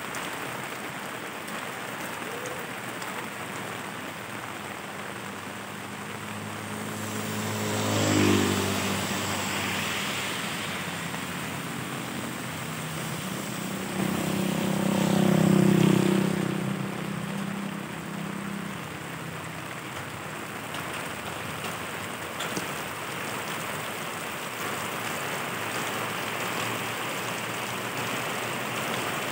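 Steady rain falling on the street, with two motor vehicles passing on the wet road: one about eight seconds in, then a louder motorcycle around fifteen seconds in, each engine swelling as it comes close and fading away.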